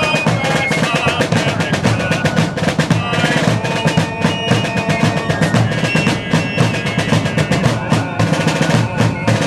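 Colonial fife and drum corps playing: a shrill fife melody over rapid snare-drum strokes and rolls, with bass drum beneath.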